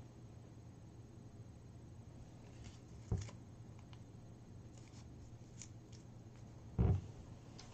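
Paper slips being handled and unfolded, faint and crackly, with a short knock about three seconds in and a louder thump near the end, over a low steady hum.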